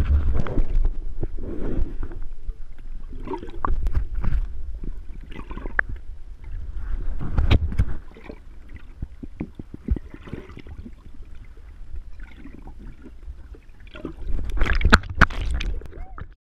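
Muffled underwater sound heard through a GoPro's waterproof housing: water moving and rumbling, with scattered sharp clicks and knocks. It swells louder near the start, about halfway through and near the end, then cuts off suddenly.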